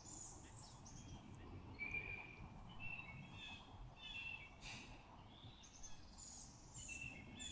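Quiet woodland ambience: faint, scattered bird chirps over a low, steady background hiss.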